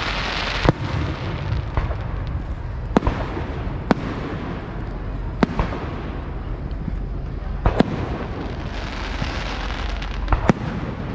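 Fireworks display going off: sharp bangs every second or so, a pair close together near the end, over a continuous rumble and crackle.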